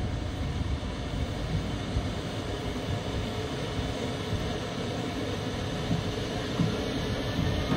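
Siemens Vectron electric locomotive hauling a passenger train away from the platform at low speed: a steady low rumble of the train. Near the end a rising whine from the traction drive joins it as the locomotive accelerates.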